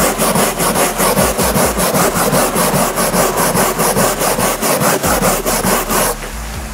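Stiff bristle hand brush scrubbing the fabric insert of a car door panel back and forth, working loose hardened mounting foam. Rapid, even strokes that stop about six seconds in.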